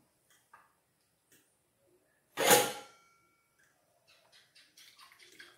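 A spoon strikes the ceramic mixing bowl of beaten eggs once, sharply, about two and a half seconds in, leaving a short ring. Near the end come light, quick clinks of the spoon stirring the mixture.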